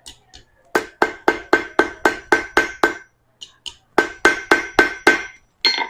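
Blacksmith's hammer striking hot round stock over the horn of an anvil, bending the curve of a hook, each blow ringing. There is a run of about nine blows at about four a second, a short pause, then about six more.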